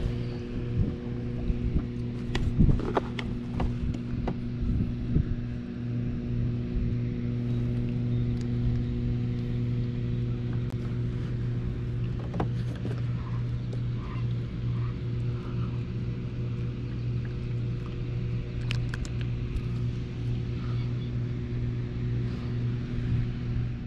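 A steady machine-like hum at one constant pitch runs throughout. In the first few seconds, sharp knocks and rattles on the kayak as a caught bass is lifted from the net and handled.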